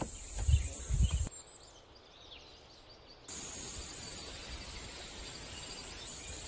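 Steady high-pitched drone of summer insects, which drops away for about two seconds near the start and then returns. Low rumbles sound during the first second.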